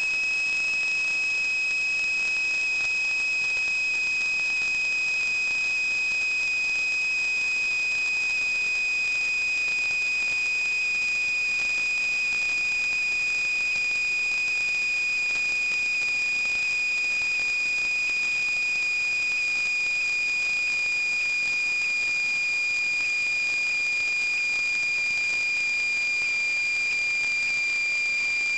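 A steady high-pitched whine, one tone with fainter overtones, sinking very slightly in pitch, over a constant hiss.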